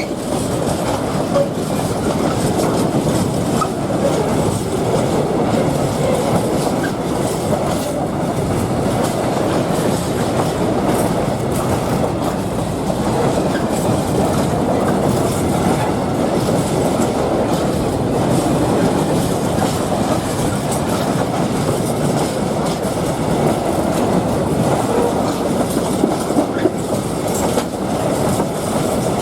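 Train of Eas open freight wagons, hauled by a Class 185 Traxx electric locomotive, rolling along the rails: a steady rolling rumble of steel wheels with faint clicks.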